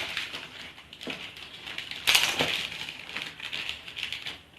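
Packaging crinkling and rustling as it is handled and worked open with scissors, with a louder crackle about two seconds in.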